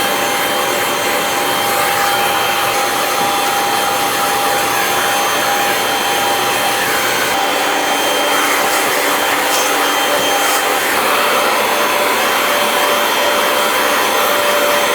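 Vacuum cleaner running steadily, a rush of air with a constant high whine, as its nozzle sucks dust out of a portable air conditioner's cooling coils.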